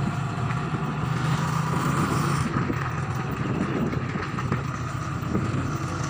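Motorcycle engine running steadily while riding, heard from the passenger seat: an even low hum under a continuous rush of noise.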